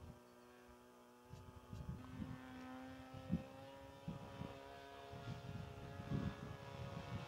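Radio-controlled model airplane's motor running in flight, a steady whine whose pitch rises a little about two seconds in. Wind buffets the microphone with low, irregular rumbles.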